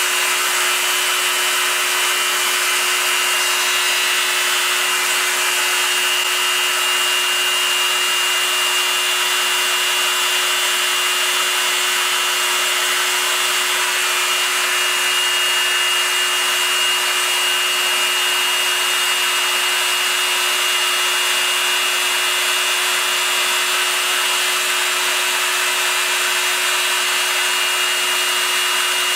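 Proxxon MF 70 micro milling machine with a CNC conversion, milling aluminium: its small spindle motor runs with a steady hum and a high whine over the hiss of the end mill cutting the metal.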